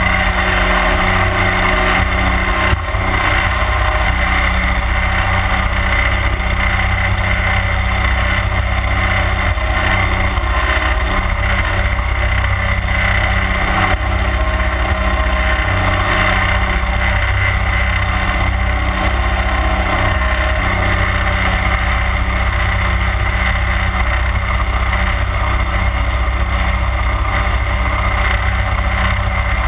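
31 hp Mud Buddy Hyperdrive surface-drive mud motor running steadily at cruising speed, pushing the boat along, with water rushing past the hull.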